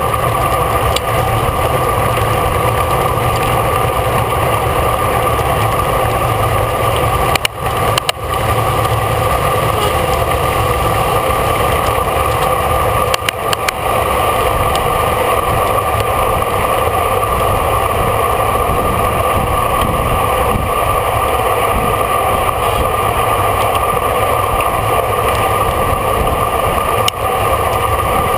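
Steady wind and road noise from a bicycle moving at race speed: a continuous rush with a steady hum, dipping briefly a few times.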